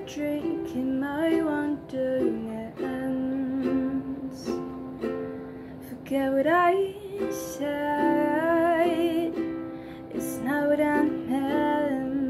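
Ukulele strummed in a slow, gentle pattern while a woman sings a ballad over it, bending into notes and holding one with a wavering vibrato near the middle.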